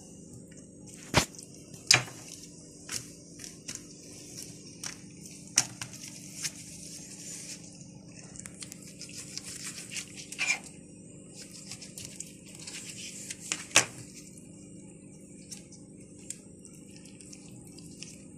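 Knife cutting raw fish fillets on a plastic cutting mat while gloved hands handle the wet fish: scattered sharp taps, the loudest about a second in, at two seconds and near fourteen seconds, with stretches of plastic-glove rustling over a faint steady hum.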